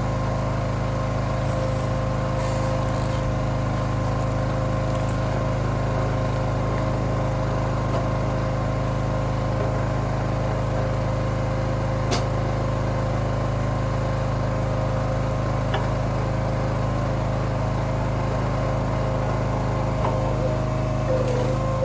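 Small gasoline engine running steadily at a constant speed, with no revving or changes in load.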